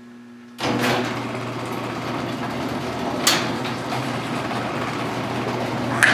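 1955 Buick's 322 Nailhead V8 running steadily, coming in suddenly about half a second in, with two sharp snaps about three seconds apart.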